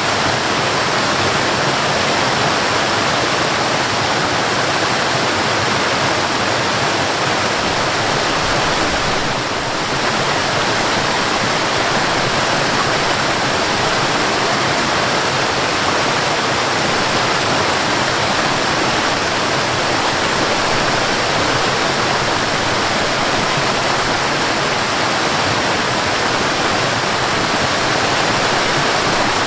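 Waterfall: water falling in a steady, dense rush, with a brief slight dip in level about nine seconds in.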